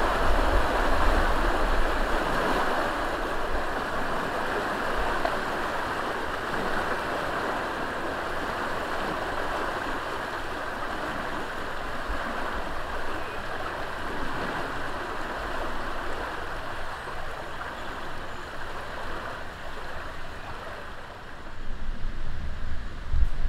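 Water rushing through the opened sluices of a river lock, a steady hiss of flowing water that slowly grows quieter. Low rumbling comes in near the end.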